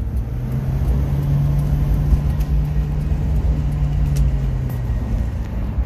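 1994 Subaru Sambar van's 660 cc four-cylinder engine driving through its freshly rebrushed e-CVT, heard from inside the cab over low road rumble: a steady engine hum that rises in pitch about half a second in, holds, and eases back down near the end.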